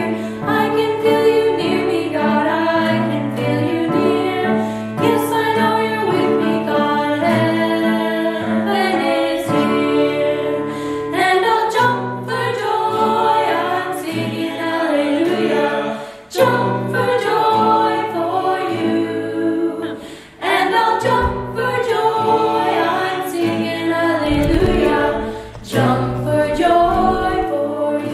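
A girl and a boy singing a lively church song together, accompanied by acoustic guitar, piano and flute.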